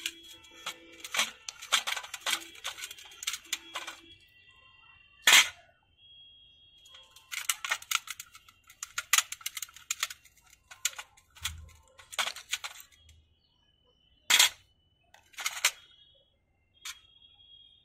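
Small metal carburetor parts and a screwdriver clicking, clinking and scraping as the carburetor is taken apart by hand. There are sharp metallic knocks, loudest about five seconds in and again near the end, some followed by a brief ringing.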